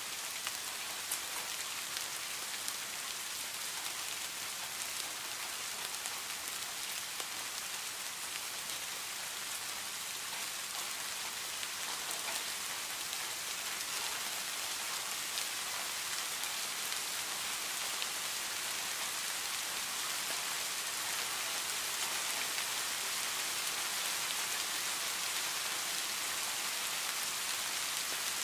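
Steady rain falling on leaves and grass: an even hiss with scattered close drop ticks, growing a little heavier through the second half.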